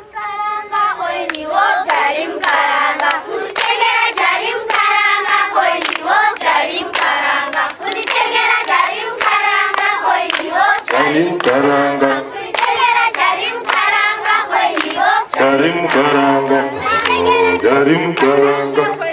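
A group of voices singing a song together over steady, rhythmic hand clapping. A lower voice part joins about halfway through.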